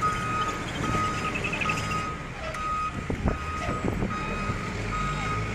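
Reversing alarm of a heavy work vehicle beeping at an even pace, one high tone on and off, over the low, steady running of its engine, with a few sharp knocks about three seconds in.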